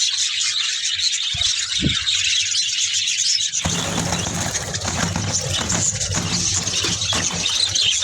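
A large flock of budgerigars chattering and chirping continuously in an aviary. About three and a half seconds in, a low rustling noise joins the chatter.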